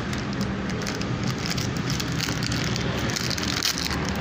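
Thin wire scraping in the circlip groove of a motorcycle disc-brake master cylinder bore, an irregular crackly scratching, over a steady low hum.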